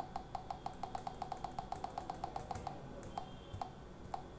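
Realme phone's touch-feedback sound, played through its speaker with touch sounds switched on. Short clicks come quickly, about seven a second, for nearly three seconds, then a few single clicks about half a second apart as the screen is tapped.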